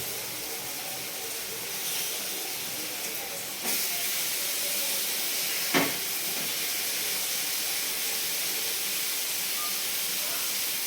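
Fish frying in hot oil, a steady sizzle that grows louder about four seconds in. A single sharp click comes about six seconds in.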